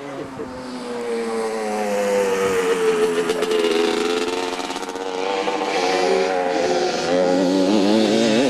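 Motorcycle engine running unseen, its pitch sinking slowly and then climbing again, with the revs wavering up and down near the end.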